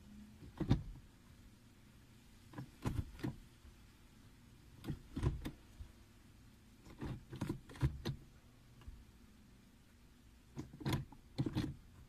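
Six-speed manual gear lever with a short-throw shifter being moved from gear to gear: sharp clicks and clunks as the lever snaps into each gate, in about five separate groups a couple of seconds apart.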